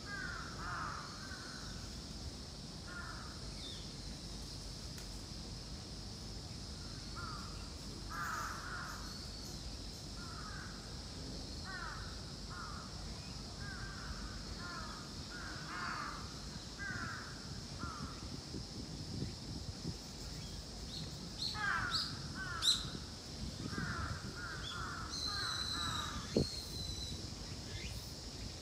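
Crows cawing over and over in short runs of harsh calls, thickest near the end, over a steady high-pitched drone.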